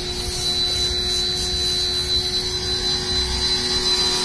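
A small Ryobi electric pressure washer running steadily, with a high whine over a hiss of soapy water spraying from a short gun's soap tip onto a car's body panels.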